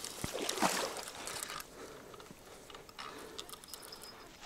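Water splashing and rustling at the bank for about a second and a half, then quieter with a few faint, irregular clicks from the spinning reel as the line to a fish caught under a snag is worked.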